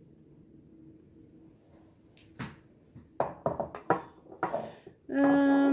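Porcelain and ceramic pieces clinking and knocking against each other and the tabletop as they are handled, a run of sharp clicks starting about two seconds in. Near the end comes a short, steady, pitched tone lasting under a second.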